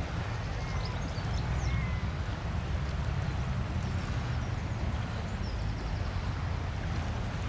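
Steady low wind rumble on the microphone by open water, with a few faint bird chirps in the first couple of seconds.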